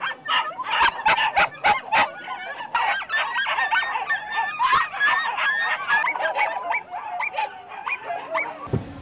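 Many caged animals crying out at once: a dense chorus of short, overlapping yelps and honk-like calls that starts about three seconds in and fades near the end. Before it comes a run of sharp clicks.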